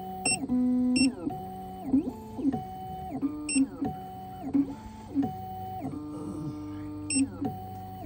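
Black Widow key-cutting machine milling a brass key blank. Its motors whine in steady tones that step up and down in pitch, with quick rising and falling glides about every half second as the cutter moves from cut to cut, over a steady low hum.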